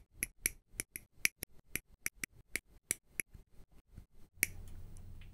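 Ultra-thin single-blade hobby nipper snipping plastic model-kit parts off their sprue gates: a quick series of crisp clicks, about four a second, that stops with a last louder snip about four seconds in, leaving a faint low hum.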